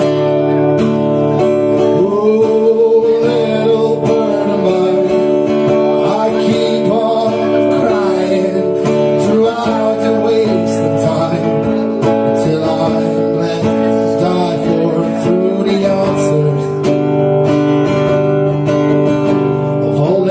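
Acoustic guitar strummed steadily through an instrumental passage of a song played live, with a melody line gliding and bending above the chords.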